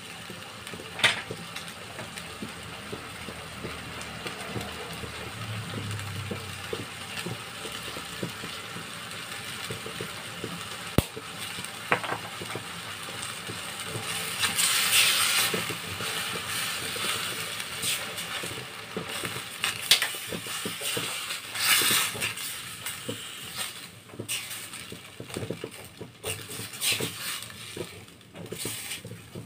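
A spatula scraping and knocking against a stainless steel wok while broccoli and carrots are stir-fried. Many short irregular clicks and scrapes run throughout, with two louder hissing scrapes about halfway through and again a little later.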